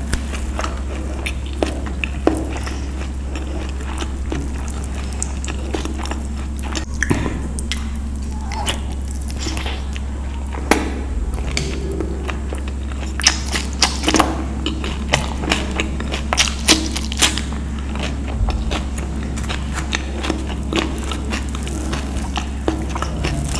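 Close-up chewing and mouth clicks of a person eating naan and paneer curry by hand, with the clicks coming thickest in the middle, over a steady low hum.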